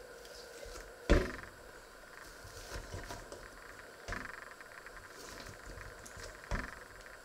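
Hands working a ball of dough in a stainless steel bowl: soft rustling and handling noise, with three knocks of the bowl. The loudest comes about a second in, the others near the middle and towards the end.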